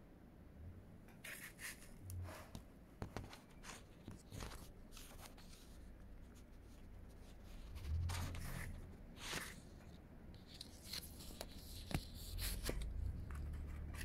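Faint, irregular rustling and scattered clicks with a few brief low bumps: handling noise from a handheld phone camera.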